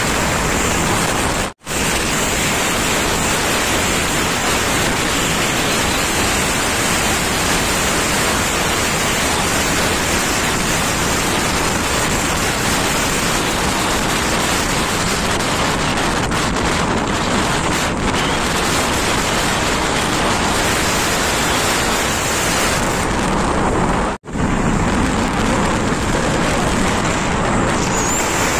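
Steady rush of wind on the microphone of a moving motorcycle, an even hiss with no clear engine note, cutting out for an instant twice.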